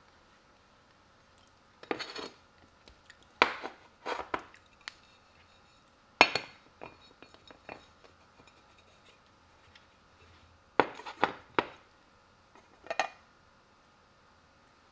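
Ceramic bowl and plate clinking and knocking against each other in about six short clusters of sharp knocks, as a bowl of packed rice is turned out onto a plate.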